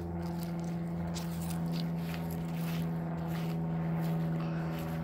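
A steady, even machine hum, with light rustling and soft footsteps over it.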